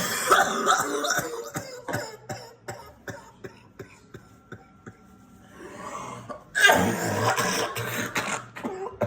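A person coughing in two loud, rough spells, one at the start and another about two-thirds of the way in, with scattered short clicks in the quieter gap between.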